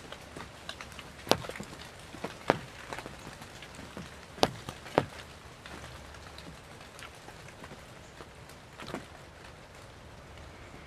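Heavy rain falling steadily, an even hiss with scattered sharp taps of drops close by, four of them louder in the first five seconds.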